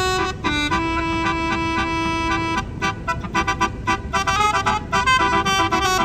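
Tour bus's Basuri telolet horn playing a tune: a quick run of notes, a long held note from about a second in lasting nearly two seconds, then another fast run of notes, over a steady low rumble.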